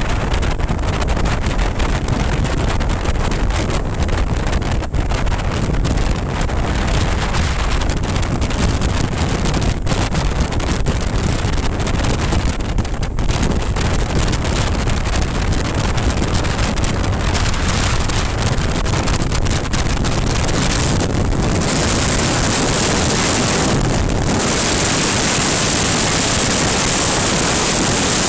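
Wind rushing and buffeting over the camera microphone on a motorcycle at road speed, a loud steady roar of wind and road noise. About twenty seconds in, the low buffeting eases and a smoother, brighter wind hiss takes over.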